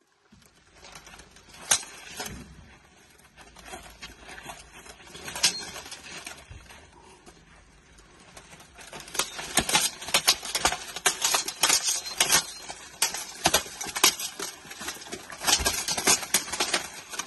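Full-contact armoured combat: steel weapons striking plate armour. There are a few scattered knocks at first, then a rapid, irregular run of blows and armour clatter from about nine seconds in.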